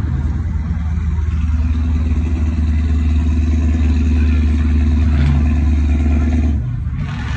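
Car engine running loudly at a steady, held speed with a deep drone, then dropping back about six and a half seconds in.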